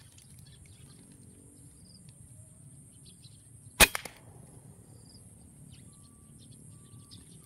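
A single air rifle shot: one sharp crack about four seconds in, followed at once by a fainter knock.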